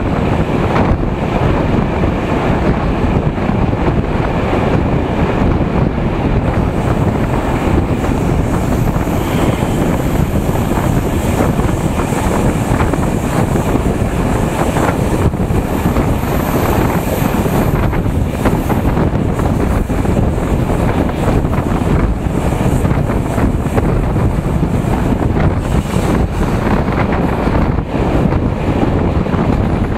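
Wind buffeting a microphone held outside the window of a moving passenger train, over the steady running noise of the train on the rails.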